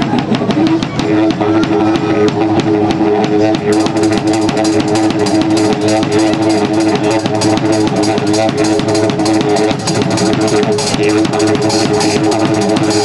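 Live band music with a drum kit beating a steady rhythm over sustained held notes; cymbals join about four seconds in.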